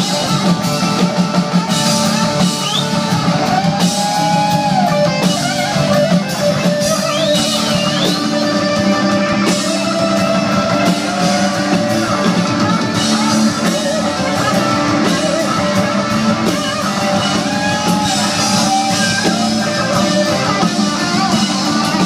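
Live band playing amplified guitar-led rock over a drum kit, steady and loud.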